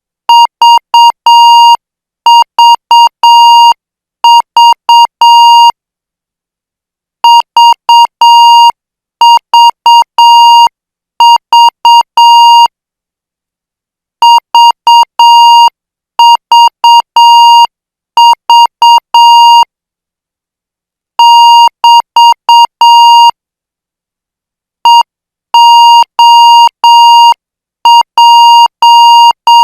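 Morse code practice tone keying random five-character code groups at about 8 words per minute: short and long beeps on one steady pitch, with a pause of a second or more between groups.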